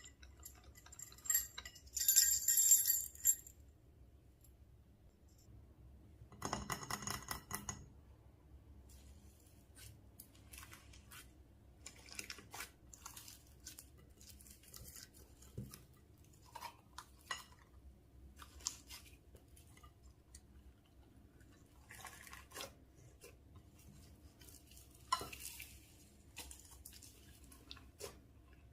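Slime being mixed and squished by hand, giving sticky crackles and small pops at an uneven pace, with a louder run of sharp clicks and clinks a couple of seconds in and another burst of rapid crackling about seven seconds in.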